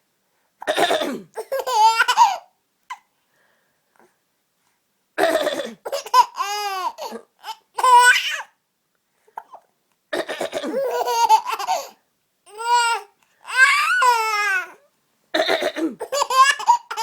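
A woman coughing several times, each cough followed by a baby's high-pitched laughter, in five or six rounds with short silences between.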